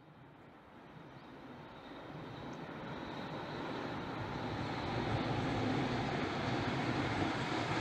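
A freight train hauled by a JNR-type EF65 electric locomotive approaching from a distance: a steady rumble that grows louder over the first five seconds, then holds.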